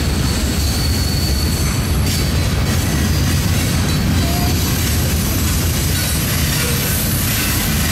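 CSX freight train's boxcars and tank cars rolling past close by: a loud, steady rumble of steel wheels on the rails.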